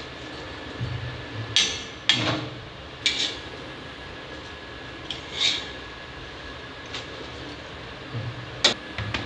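A steel spatula clinking and scraping against a cast-iron tava and a steel plate as a ragi bhakri is turned and lifted: about five sharp metallic knocks, spread out, over a steady hiss.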